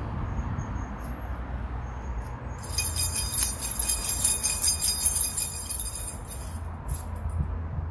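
Rapid, bright metallic jingling starting about two and a half seconds in and lasting about four seconds, over a steady low rumble of wind on the microphone.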